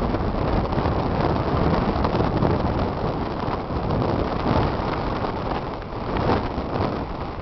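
Wind blowing across the microphone: loud, uneven noise that swells and dips with the gusts.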